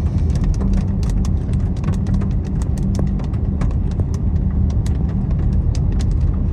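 A car driving, with a steady low road and engine rumble heard inside the cabin, and scattered sharp ticks of rain striking the car's body and glass.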